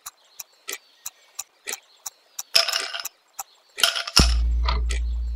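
Countdown clock-ticking sound effect, two to three ticks a second with two short rattling bursts. About four seconds in, a deep buzzer tone sounds and fades slowly as the answer timer runs out.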